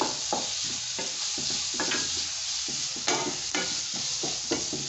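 Chopped onions and fresh tomatoes sizzling in hot mustard oil in a black kadai. A wooden spatula scrapes and knocks against the pan as it stirs them, about three strokes a second, over a steady frying hiss.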